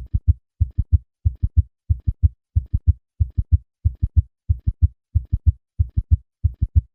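Heart sounds in a fast triple rhythm: low thuds in groups of three, about one and a half cycles a second. Each cycle holds the first and second heart sounds plus a summation gallop, where a third and a fourth heart sound fuse into one extra sound in mid-diastole at a heart rate above 90.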